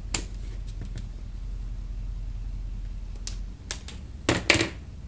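Hands working modelling clay on a paper-covered table: scattered light taps and clicks, with a louder cluster of taps near the end.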